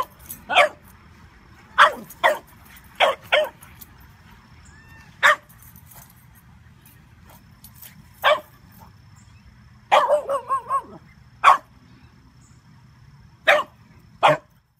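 Small dog barking in play: short, sharp yaps every second or two, with a quick run of several barks about ten seconds in.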